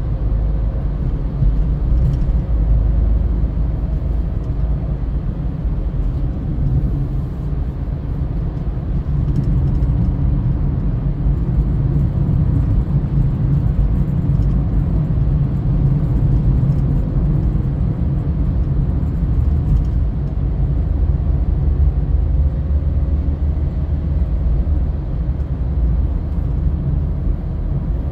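Steady low rumble of a car driving at road speed, with tyre and engine noise heard from inside the cabin.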